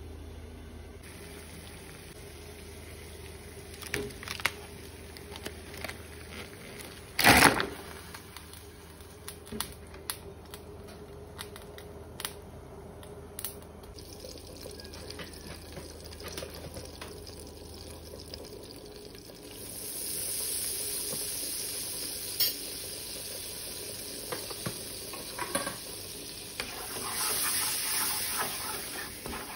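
Kitchen handling sounds: scattered knocks and clicks of pots and utensils, the loudest a single knock about seven seconds in. From about two-thirds of the way through, butter sizzles and foams in a frying pan as flour is stirred in for a roux, a steady hiss with occasional scrapes and clicks.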